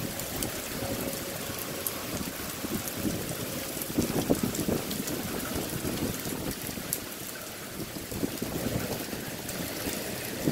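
Heavy thunderstorm rain falling steadily, with fine drop hits through it and a louder rush about four seconds in.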